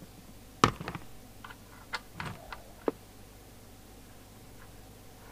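A handful of sharp clicks and light knocks, the loudest about two-thirds of a second in, then quiet: a replacement microphone's plug being connected to a CB radio.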